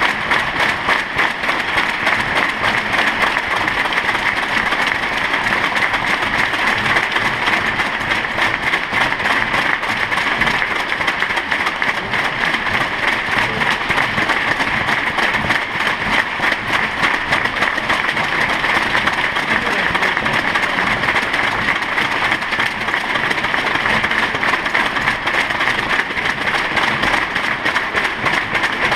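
Arena crowd applauding steadily and without a break, a minute of applause held as a tribute.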